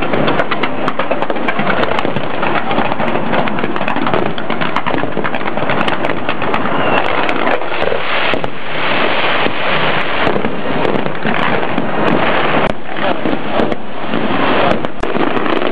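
Fireworks display going off without pause: a dense crackle of many rapid pops and bangs from rows of ground fountains and aerial shells.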